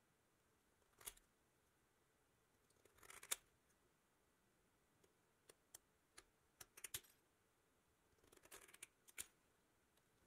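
Scissors snipping through thin perforated sheet metal in separate cuts: one about a second in, a longer cut around three seconds, a run of short sharp snips between five and seven seconds, and another cut near nine seconds.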